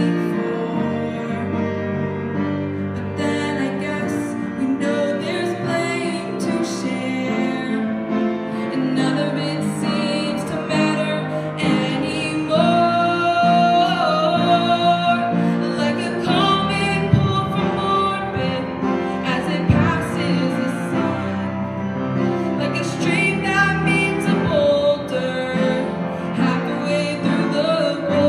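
A woman singing a solo ballad into a microphone, her voice amplified, over an instrumental accompaniment.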